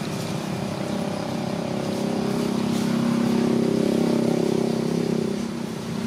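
An engine running steadily with a low, even hum that swells a little in the middle and eases off near the end.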